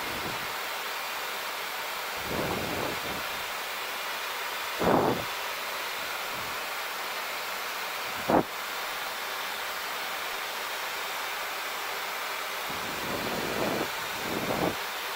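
Steady rushing airflow noise in a Boeing 737 cockpit on approach, with landing gear down and flaps 15. A few brief louder rumbles come and go, and there is one sharp thump about eight seconds in.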